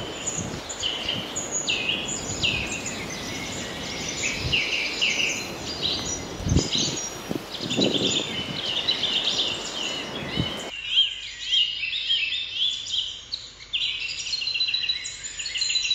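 Many small birds chirping and twittering in quick, overlapping calls, over a background of outdoor noise that cuts off suddenly about two-thirds of the way through, leaving the birdsong alone.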